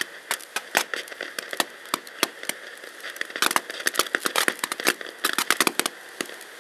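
Small ground fountain firework burning, its spark spray crackling fast over a steady hiss. The crackles die away near the end, leaving the hiss.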